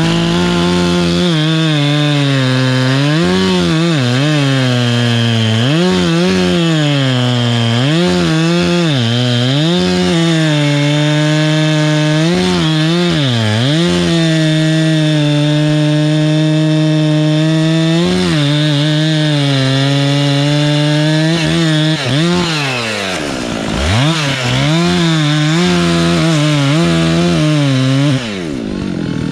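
Chainsaw running at high revs while cutting pine, its engine pitch dipping and recovering again and again as the chain loads in the wood. It sags hard about two-thirds of the way through, then drops off near the end.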